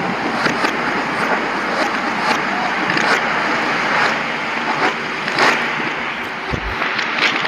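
Heavily distorted, effects-processed audio: a dense, steady hiss broken by frequent crackles, with a brief low thump near the end.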